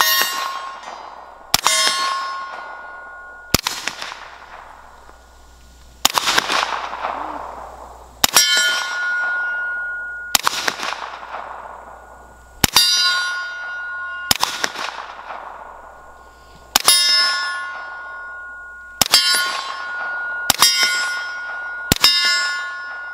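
About a dozen slow, single suppressed 9mm shots from a CZ Scorpion Micro with a SilencerCo Hybrid 46, one every one and a half to two and a half seconds. Each shot is followed by the clang of a hit steel plate target, a ringing tone that fades over a second or two and is louder than the gun itself.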